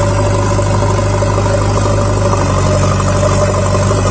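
Diesel engine of a JCB 3DX backhoe loader running steadily and loud at a constant pitch, with a slight change in its note about halfway through.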